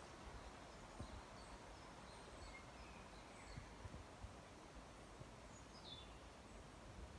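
Faint forest ambience: a steady low hiss with scattered distant bird chirps, and one downward-sliding bird call about six seconds in.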